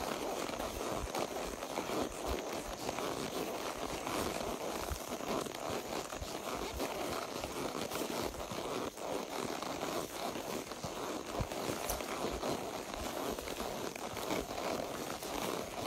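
A horse walking under a rider along a trail: a steady rustling and crackling with a few irregular soft thuds from the hooves.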